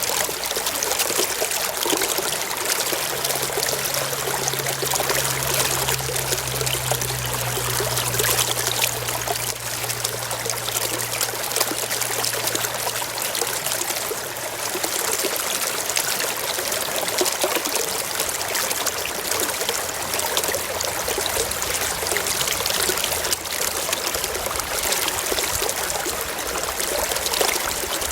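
Mountain stream flowing over rocks, a steady rush of water.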